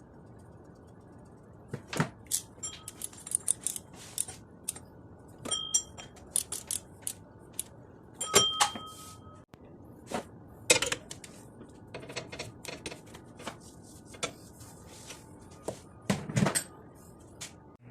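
Metal hand tools and parts clinking and clanking irregularly, a few strikes ringing briefly.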